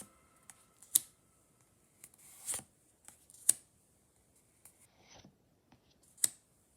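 Trading cards and a foil booster-pack wrapper being handled: three sharp clicks or snaps and a brief rustle, with faint small handling noises between them.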